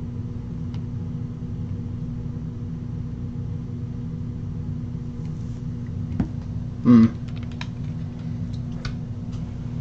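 Steady low room hum, with a few light clicks scattered through it and one brief louder sound about seven seconds in.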